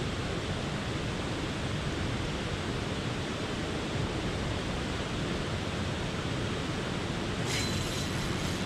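Steady rushing noise of wind buffeting the camera's microphone. Near the end, a short high hiss as the fishing rod is cast and line pays out.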